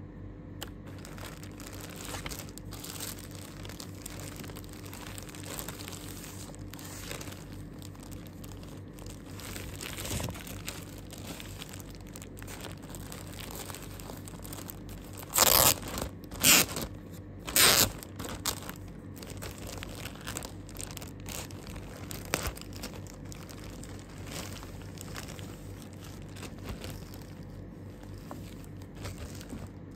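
A thin clear plastic bag around a T-shirt crinkling and crackling as it is handled and pulled open, with three loud, sharp crackles of the plastic about halfway through.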